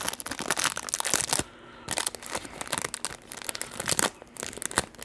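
Clear plastic card-pack wrapper being handled and pulled open by gloved hands, crinkling and tearing in bursts with short pauses, its sticky seal catching on the gloves.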